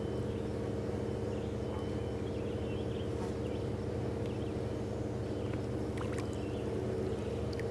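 Pool filter pump motor running with a steady, even hum.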